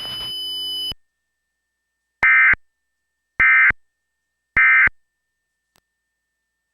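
Three short bursts of EAS SAME digital data tones, the End of Message (NNNN) signal, each about a third of a second long and a little over a second apart. A faint background hum cuts off about a second in, before the bursts.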